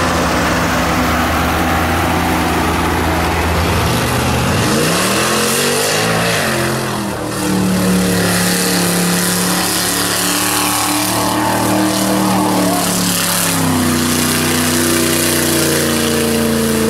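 Lifted Ford mud truck's V8 engine revving hard under load as it plows through a mud hole. The pitch climbs about five seconds in, holds high, then drops back to a lower steady run near the end.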